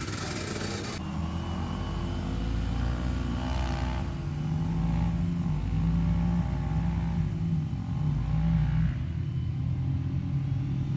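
Motor vehicle engine running steadily at a near-constant pitch, with a low rumble underneath, starting abruptly about a second in.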